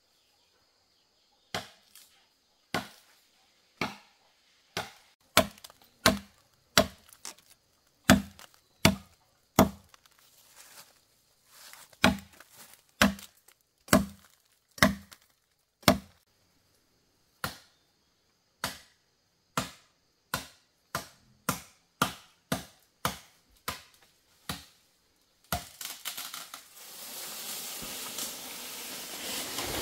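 Repeated chopping strokes into wood, sharp single blows at roughly one a second. Near the end the chopping stops and a rushing, rustling noise takes over.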